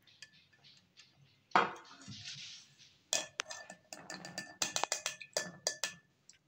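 A metal mesh strainer knocked and scraped against a glass jar, with a knock and rattle about a second and a half in. From about three seconds in comes a quick run of sharp, ringing clinks as the strainer is tapped on the jar's rim to shake the oil through.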